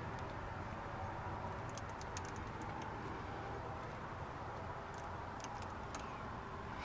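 Faint, scattered light clicks and ticks of pliers twisting stranded wire onto a battery terminal, over steady background noise.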